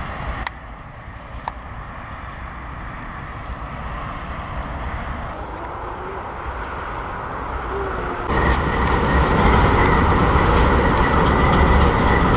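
Union Pacific diesel locomotives running as they approach and pass on the track. About eight seconds in it gets suddenly louder, with a steady high whine and sharp clicking over the engine noise as the units roll by.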